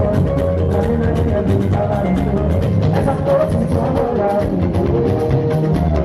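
Music with a quick, steady drumbeat and a melody line over it.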